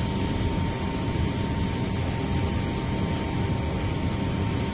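Steady, even mechanical rumble, like machinery running nearby, with a faint constant high whine.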